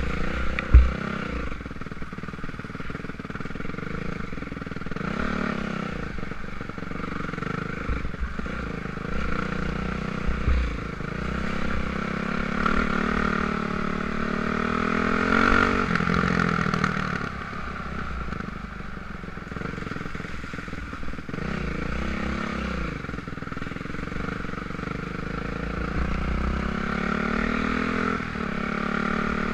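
Dirt bike engine pulling along a rough trail, its pitch rising and falling over and over as the throttle opens and closes, under wind rush and clatter from the bike. A sharp knock about a second in is the loudest moment.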